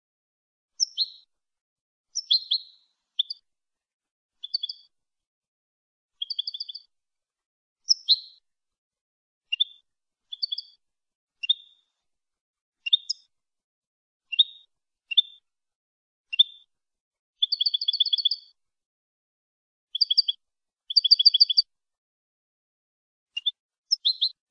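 European goldfinch (jilguero) singing: short, separate phrases of high twittering chirps, about one a second, two of them rapid trills in the second half, with clean silence between phrases. It is a clean competition-style song recording of the kind used to tutor captive goldfinches.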